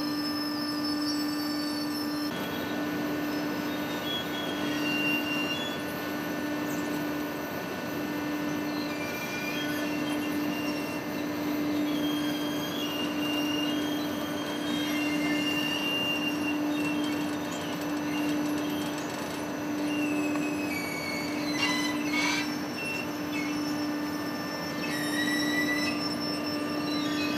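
Date-processing oven conveyor line running: a steady machine hum with a gently pulsing tone, and short high-pitched squeals that come and go throughout.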